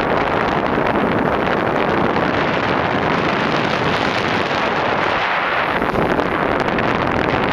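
Steady wind buffeting the microphone aboard a boat moving across the lake, a loud continuous rushing noise.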